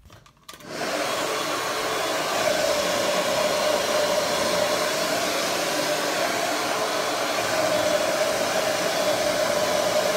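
Hand-held hair dryer blowing hair dry. It runs steadily, a rush of air over an even motor hum, starting about half a second in.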